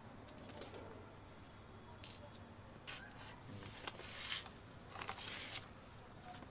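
Quiet handling noise: a few short, crisp rustles and scrapes in the second half as hands work among dry leaves, plastic pots and a grow bag. Faint bird chirps can be heard now and then.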